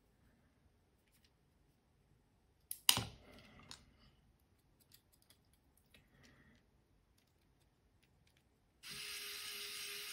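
Small parts being handled, with a sharp clack about three seconds in and a few lighter clicks after it. Near the end a pen-style electric screwdriver starts and runs steadily, driving an M2 screw through the carbon frame into a standoff.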